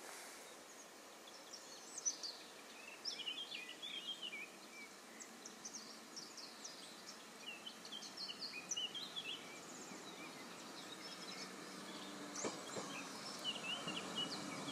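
Small birds chirping and singing on and off, over a low rumble of an approaching Stadler GTW diesel train that grows steadily louder through the last few seconds.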